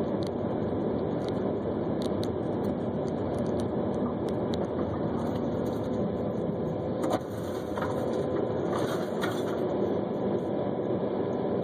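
Steady road and engine noise of a moving car, heard through a dashcam's microphone, with one short sharp knock about seven seconds in.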